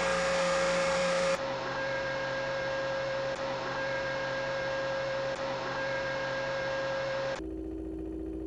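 Steady machine-like hum and hiss with a held tone, edited in blocks: it changes abruptly to a quieter hum about a second and a half in, and again to a lower, duller hum near the end.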